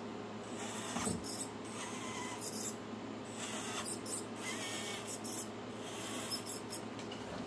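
Mini RC crawler truck's small electric motor and gears whining faintly as it drives, with a few short high squeaks.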